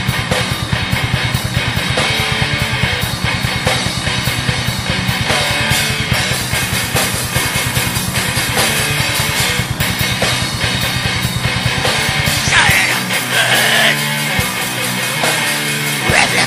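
Raw black metal: distorted electric guitars over fast, dense drumming, with a lo-fi recording sound. The kick drum drops out about thirteen seconds in.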